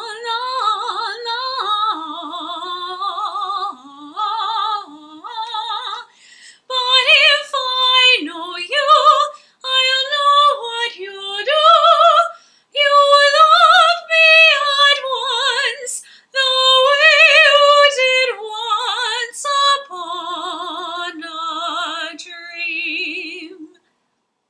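A woman singing a cappella in a classical soprano voice with vibrato. The first few phrases are soft and lower; from about a quarter of the way in the phrases turn louder and higher, with short breaths between them, and the singing ends shortly before the end.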